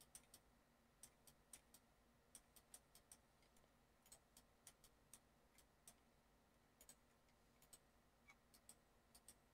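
Near silence broken by faint, irregular clicks of a computer mouse and keyboard, a few a second, over a faint steady hum.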